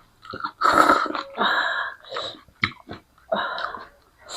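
A person slurping Shin Ramyun noodles and drawing breath while eating: several short noisy slurps with a couple of sharp clicks near the middle.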